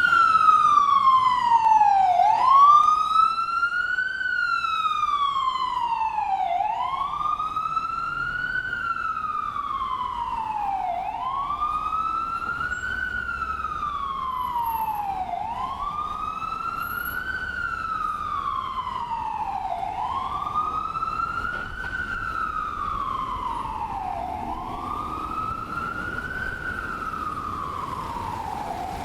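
Ambulance siren on a slow wail, its pitch rising for about two seconds and falling for about two, over and over, while it slowly grows fainter.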